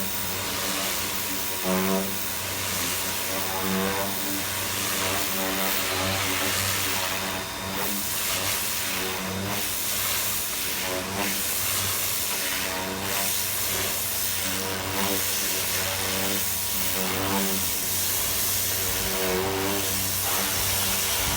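Water spraying onto a car's bodywork while it is rinsed of soap: a steady hiss that swells and eases every second or two as the spray sweeps across the panels.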